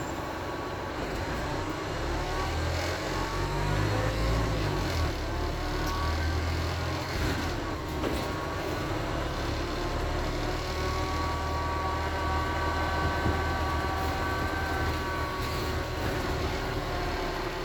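Wright StreetDeck double-decker bus driving, its Daimler OM934 four-cylinder diesel and drivetrain giving a steady low rumble. A faint, slightly rising whine is laid over it and holds through the second half: the groaning noise this bus makes.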